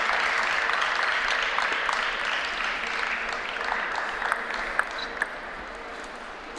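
Audience applauding after a point in a table tennis match, slowly dying away. Three sharp taps come in the second half as the clapping fades.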